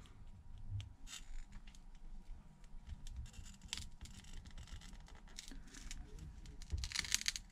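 Faint scratching and small clicks of a pry tool working at the edge of a phone's glued front glass, with a quick run of louder scratches near the end.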